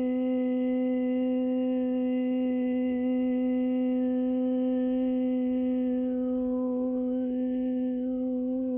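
One voice humming a single long note, held at an unchanging pitch, its tone colour shifting slightly about two-thirds of the way through.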